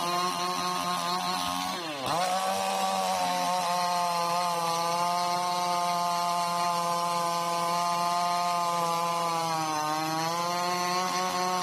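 Chainsaw engine running fast and steady. Its pitch drops sharply and recovers about two seconds in, then sags briefly again near the end.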